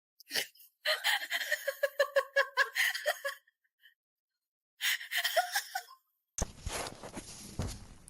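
A person laughing hard in a quick run of breathy, pulsing bursts for a couple of seconds, then a shorter burst of laughter. Near the end, a steady hiss with a couple of knocks.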